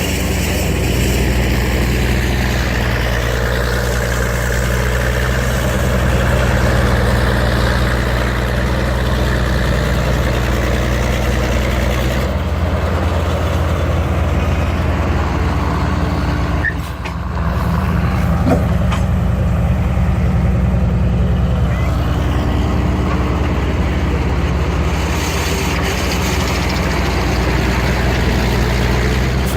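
Large engine of antique heavy construction equipment running steadily under work, its note shifting about 12 seconds in, with a brief break in the sound near 17 seconds.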